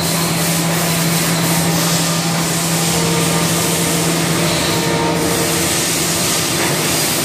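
Haas SL-30M CNC lathe spindle spinning the chuck at about 1500 RPM, a steady whirring hiss. A low hum under it fades out about four and a half seconds in, while higher tones rise and fall around the middle.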